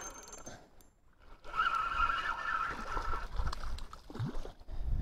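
Spinning reel being cranked to retrieve a lure, its gears whirring for about a second and a half in the middle.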